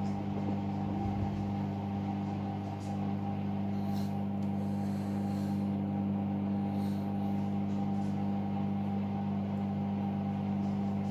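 Hoover All In One washing machine's drain pump humming steadily at one unchanging pitch as the machine pumps out its water.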